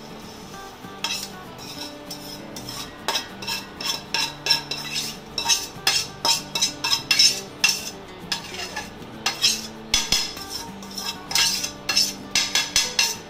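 Steel spoon scraping and knocking against a non-stick kadhai as fried gond is scraped out into a steel bowl: a quick, uneven run of sharp clinks and scrapes, thickest about five to eight seconds in and again near the end.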